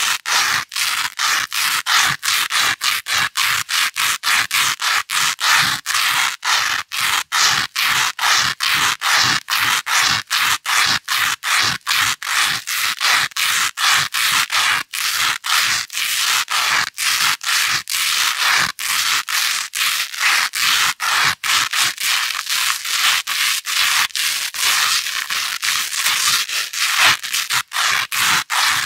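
Velcro hook strip rubbed back and forth against loop fabric in quick, even scratching strokes, about three a second, with short breaks between strokes.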